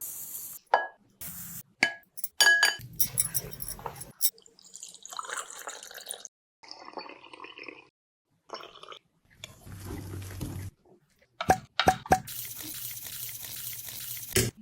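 A string of short, cut-together kitchen sounds of ingredients going into a glass bowl or mug and being mixed: liquid pouring and dripping, and a spoon clinking on glass.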